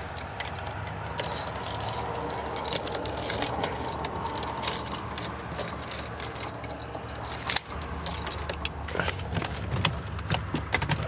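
A bunch of keys jangling and clicking as keys are fumbled at the ignition, trying to find the one that fits.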